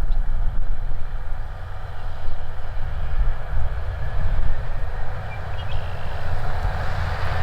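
Gleaner S97 combine running as it harvests wheat: a steady low engine rumble with a rushing noise above it, getting louder toward the end.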